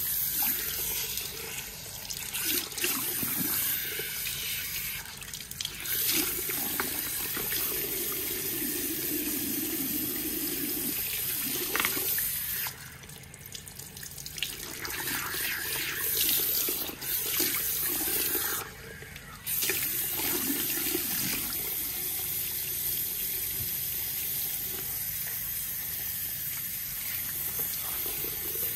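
Water from a salon shampoo-bowl hand shower running steadily through wet hair and into the basin as the hair is rinsed. The spray cuts out briefly about halfway through and again a few seconds later.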